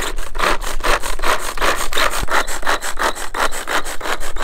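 Fast, even rasping cutting strokes, about seven a second, a blade working back and forth without a break.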